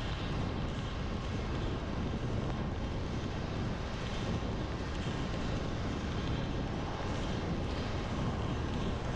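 Steady road noise of a car driving on a wet road in heavy rain: a low rumble with a continuous hiss of tyres on wet pavement.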